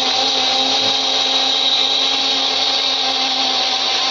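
Electric kitchen mixer grinder running at a steady speed, grinding mint leaves in its jar: a loud, even motor whine over a strong hiss.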